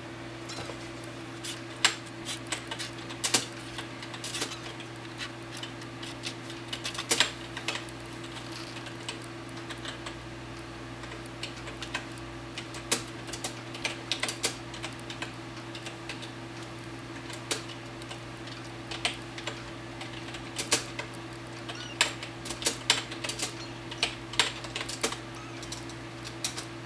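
Two-week-old kittens scrambling and wrestling in a towel-lined cardboard box: irregular light clicks and scratches from their claws and paws, in scattered clusters over a steady low hum.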